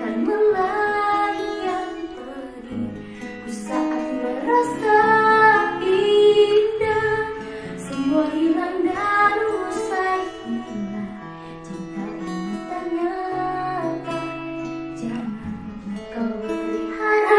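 A woman singing a slow Indonesian pop ballad, with acoustic guitar accompaniment.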